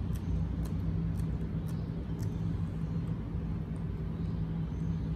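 Steady low background hum with a constant low tone, and a few faint light clicks.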